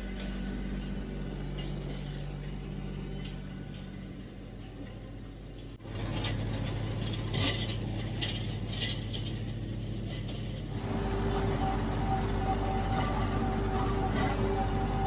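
Kioti CK3510SE diesel tractor running steadily with a mechanical clatter. The sound changes abruptly about six seconds in. About eleven seconds in, a steady whine joins and the sound gets louder.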